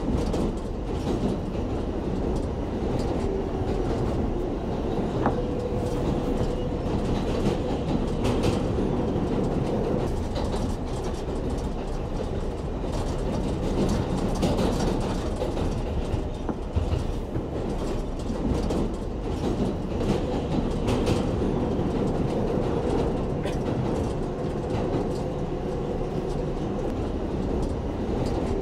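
New York City 7 subway train running between stations, heard from inside the car: a steady rumble with scattered clicks of the wheels over the rail joints and a faint steady whine.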